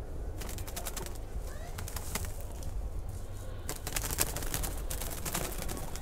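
Dry leaves and twigs rustling and crackling in four short bursts, about two seconds apart, over a steady low rumble, with a few brief rising chirps in between.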